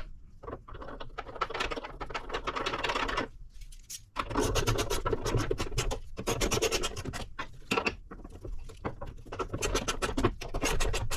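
Scraping and clicking of metal hood-strut bracket hardware being handled and fitted into place, in two stretches with a short pause about three seconds in.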